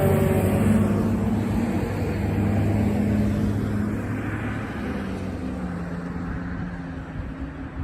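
Fire truck driving away: its engine running with road noise, fading steadily, as the tail of its siren winds down near the start.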